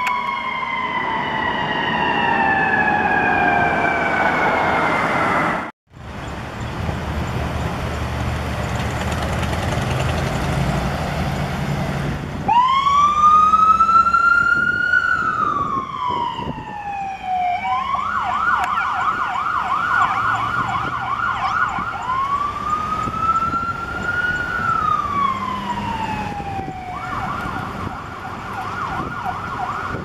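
A fire engine's siren winding down in a long falling wail. About six seconds in the sound cuts to a low engine and traffic rumble. From about twelve seconds a fire chief's SUV's electronic siren sounds, switching between a slow rising-and-falling wail and a rapid yelp.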